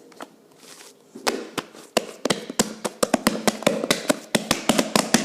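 Freshly made fluffy slime of glue, shaving cream, shampoo and borax being stretched and squeezed by hand, giving a run of sharp sticky clicks and pops. A few come at first, then they come fast, several a second, from about a second in.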